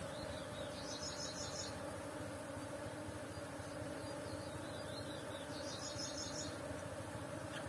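Honeybees buzzing in a steady hum around their opened nest as the comb is cut out. A high chirping call sounds twice in the background, about four and a half seconds apart.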